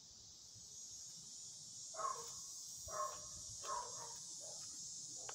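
A dog barks three times about a second apart, starting two seconds in, then gives a couple of fainter barks. Under the barks runs a steady high buzz of insects.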